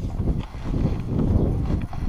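Yamaha Mint scooter's two-stroke engine running on the move, heard as a low, uneven rumble buffeted by wind on the microphone.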